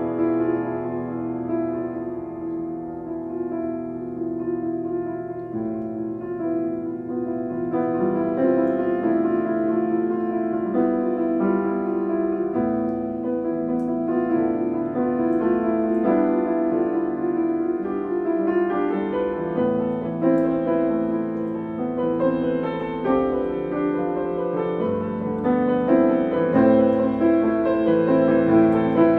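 Background piano music with slow, held notes.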